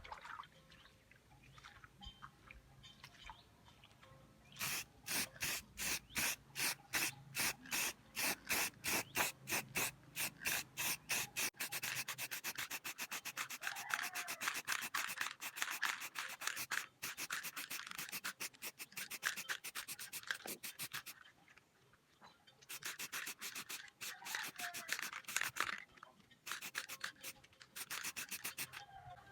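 Sandpaper rubbed back and forth by hand on a motorcycle exhaust pipe. The strokes come about three a second at first, then faster and packed closer together through the middle. After a short pause there are two more bouts of strokes.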